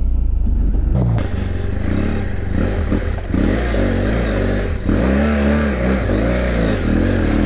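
BMW F 800 GS adventure motorcycle's parallel-twin engine revving on a dirt track. It sounds dull and muffled at first; about a second in it becomes close and clear, its pitch rising and falling repeatedly with the throttle over a steady rushing noise.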